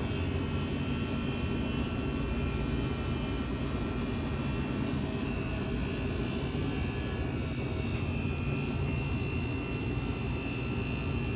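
Steady hum and whir of a store's refrigerated drink coolers, with a faint high whine running through it.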